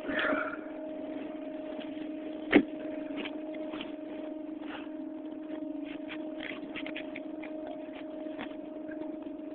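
A steady machine hum at one low pitch with its overtone, with faint scattered clicks and one sharp click about two and a half seconds in.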